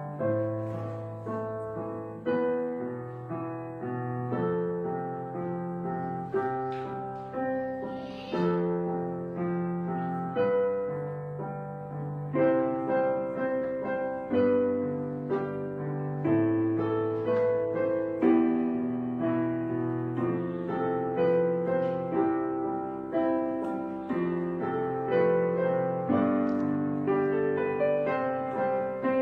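Background piano music: struck chords and notes, each fading away, in a steady flowing accompaniment.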